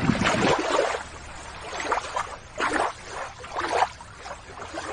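Shallow water splashing and trickling in several short, uneven surges as a toy lobster and a hand net are moved through it.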